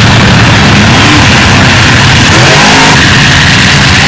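Several monster truck engines running together, very loud, with brief revs rising and falling in pitch near the middle.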